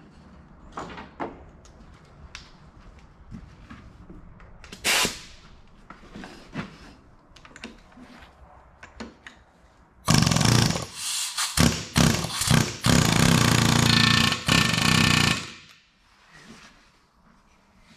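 Pneumatic impact wrench hammering a nut onto the shaft of an Eaton 13-speed transmission's auxiliary section. It runs in several bursts over about five seconds in the second half, the last burst the longest. Before it, short metallic clinks and knocks of parts being handled on the bench.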